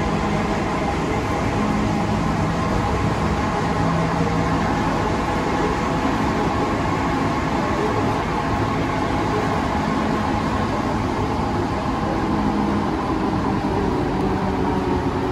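Inside a running Alstom NS-16 rubber-tyred metro car: the steady noise of the train travelling at speed between stations, with a faint hum from the drive underneath.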